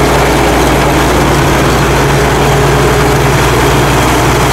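Crawler rice combine harvester running steadily as it cuts and threshes rice: a loud, even engine hum with the machinery's noise over it.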